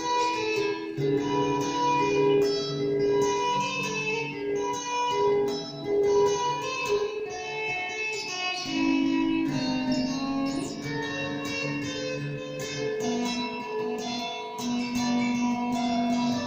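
Revelation RJT60 electric guitar played through a Vox Tonelab amp-modelling processor: a run of picked single notes and double-stops that ring on, with one note bent down and back up around the middle.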